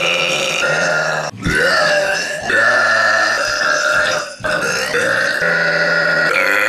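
Loud, long, pitched human belches, one running into the next with only two brief breaks, driven by air swallowed quickly between them.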